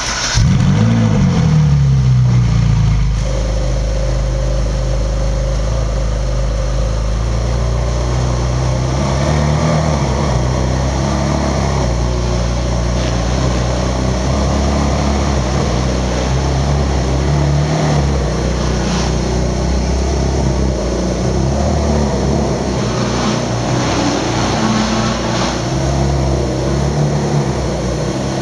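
Ferrari 458 Italia's 4.5-litre V8 starting up: it fires with a quick rising flare of revs that falls back over about three seconds, then settles into a steady idle.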